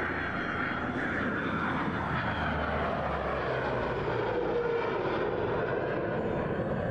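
An F-22 Raptor and a P-38 Lightning flying past together in formation: a steady rushing drone of jet and piston engines, whose pitch slides down over the first five seconds or so.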